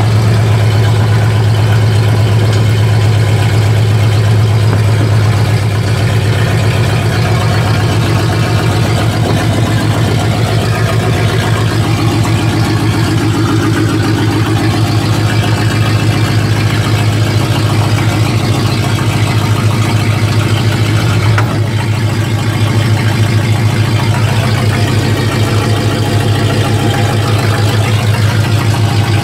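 1955 Pontiac truck's engine running steadily under way, heard from inside the cab as a strong, even low hum. A single brief knock comes about two-thirds of the way through.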